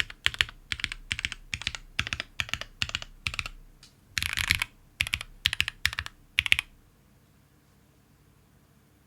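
Typing on a Fuji65 mechanical keyboard with stock Gateron Cap Milky Yellow linear switches, GMK keycaps and an aluminium top-mount plate. Quick clusters of keystrokes come with one longer dense run about halfway, and the typing stops about two-thirds of the way through.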